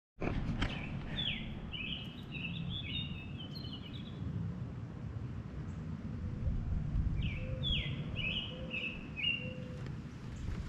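A songbird singing two phrases of quick, falling chirped notes, one about a second in and another about seven seconds in, over a steady low rumble.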